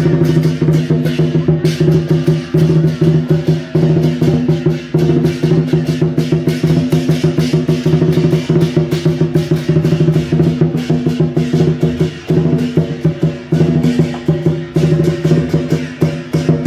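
Lion-dance percussion band playing: a drum beaten fast and steadily with crashing cymbals, about four or five strokes a second, over a steady ringing tone, letting up briefly twice near the end.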